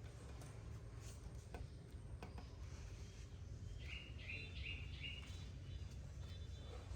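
About four short, high chirps in a quick row from a small animal, over a steady low background rumble.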